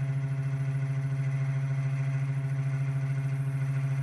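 CNC router's stepper motors driving the gantry along the X axis during an automated touch-plate probing move, giving a steady low hum with a faint high whine above it.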